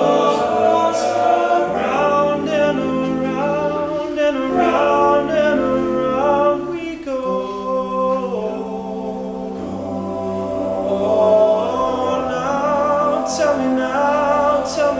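All-male a cappella group singing close harmony chords, with a low sung bass line that moves between held notes beneath the upper voices.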